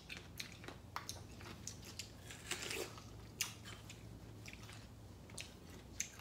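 Close-up eating sounds: biting and chewing star fruit, with scattered short wet clicks and crunches.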